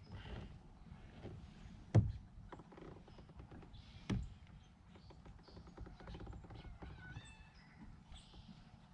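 Two sharp knocks about two seconds apart over a faint low rumble, with short high chirps near the end.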